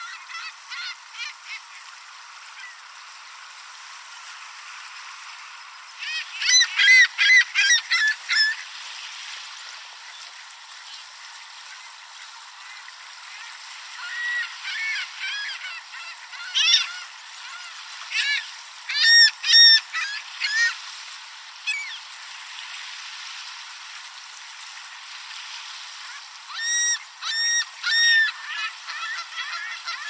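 Lakeshore waterbirds, ring-billed gulls and Canada geese, calling in loud bouts of quick repeated notes. One bout comes about six seconds in, a cluster sits in the middle, and another comes near the end, over a soft wash of lapping water.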